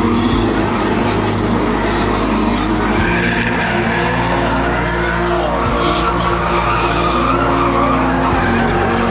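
BMW E36 drift cars sliding in tandem, engines revving up and down with tyre squeal. A low, sustained musical drone underneath shifts pitch a few times.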